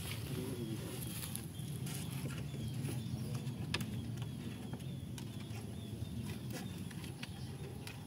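Outdoor ambience with faint bird chirps and scattered sharp clicks and taps as bamboo poles are handled and tied together, over a steady low rumble.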